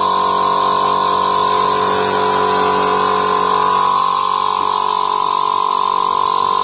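A steady mechanical hum with an even hiss, unchanging in pitch and loudness.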